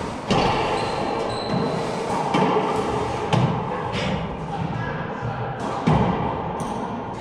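Racquetball rally: sharp cracks of the ball off racquets and the court walls, about five over several seconds, each echoing in the enclosed court.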